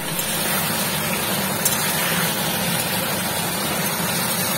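Mutton curry frying and sizzling steadily in a wok, stirred with a metal spatula, with a faint click or two from the spatula.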